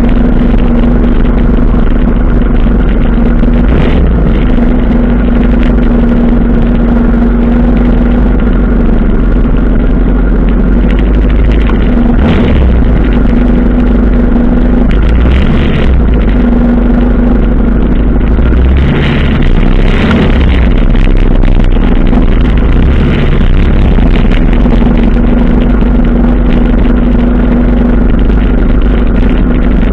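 1985 Suzuki GS 700 ES motorcycle's inline-four engine running at low speed in slow parade traffic: a loud, steady drone with a low rumble. Other motorcycles run close ahead.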